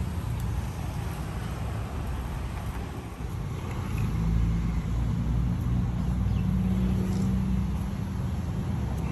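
Low rumble of street traffic; a vehicle engine comes closer and gets louder about four seconds in, holds a steady low tone for a few seconds, then eases off.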